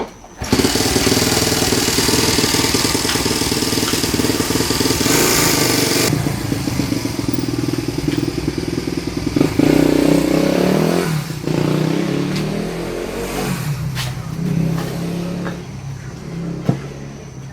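Small Honda Monkey motorcycle engine running, loud from about half a second in, with its speed rising and falling before settling lower in the second half. The engine has a loud abnormal mechanical noise that new cam chain parts did not cure; the owner suspects the clutch.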